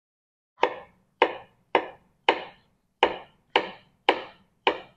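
Kitchen knife slicing a banana on a wooden cutting board: the blade knocks sharply on the board eight times, about twice a second.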